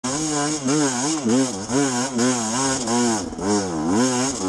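Motorcycle engine revved again and again, its pitch swinging up and down about twice a second over a steady lower drone.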